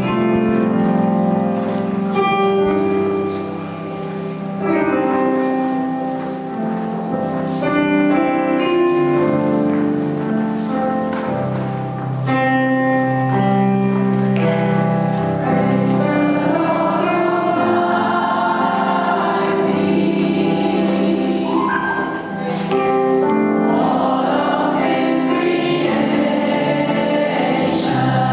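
Gospel choir singing in held chords that change every second or two, with wavering upper lines from about halfway through.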